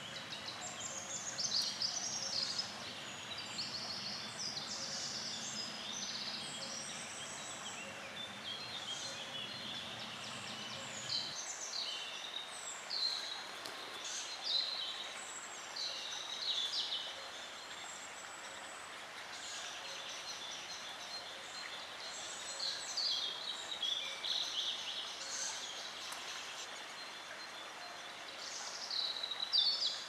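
Birds calling in woodland: many short, high chirps and trills one after another. A low steady hum sits underneath for the first third and cuts off suddenly.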